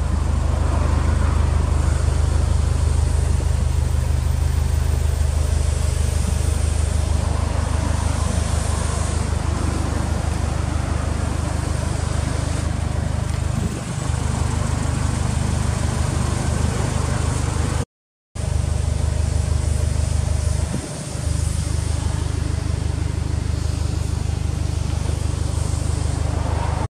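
Subaru Impreza WRX STI (GVB) 2.0-litre turbocharged flat-four idling steadily through an aftermarket BLITZ exhaust: a low, even drone. It cuts out for a split second about two-thirds of the way through.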